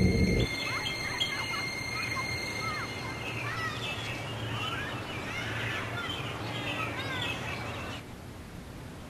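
Birds chirping and twittering in a park, after ominous music cuts off about half a second in; the chirping stops about a second before the end.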